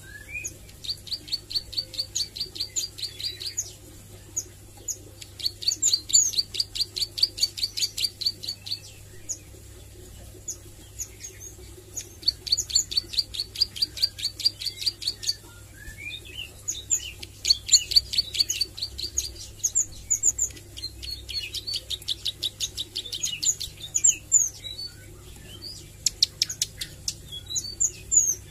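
Caged ciblek sawah (a prinia) singing: about five runs of rapid, high, clicking notes, each two to three seconds long, with scattered sharp chips between them. These are the quick 'nembak' bursts of a bird still learning its song.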